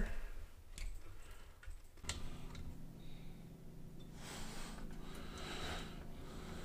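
Light clicks and rustling as an AIO liquid cooler's CPU water block and its tubing are handled and set in place inside a PC case.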